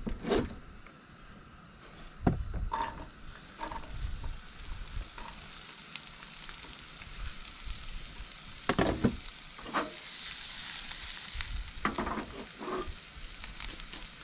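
Diced onion and garlic sizzling as they hit hot olive oil in a frying pan on a portable gas stove. The hiss starts about three seconds in and holds steady, with a few short knocks and clatters over it.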